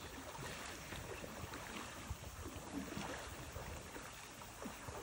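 River water lapping and trickling faintly against the hull of an inflatable kayak as it drifts with the current, with small splashes here and there.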